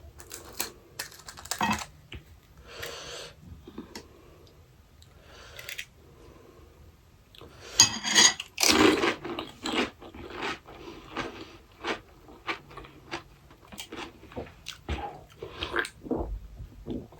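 Close-miked crunching and chewing of pani puri, the crisp fried puri shells crackling between the teeth in many small crunches. The loudest crunching comes about eight seconds in.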